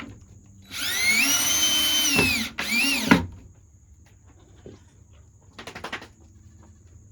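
Cordless drill driving a screw while a feeder is fastened in place: one run of about two seconds that winds down at the end, then a short second burst.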